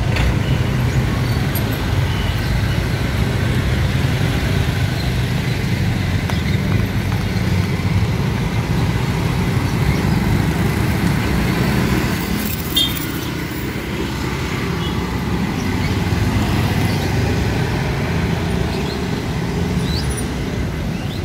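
Street traffic: a steady, loud rumble of passing motorbike and car engines, with no single vehicle standing out.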